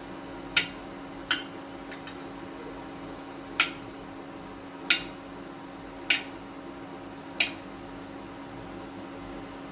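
A kitchen knife cutting through soft fresh paneer and tapping down on the cutting board, six sharp taps spaced about a second or more apart, over a steady low hum.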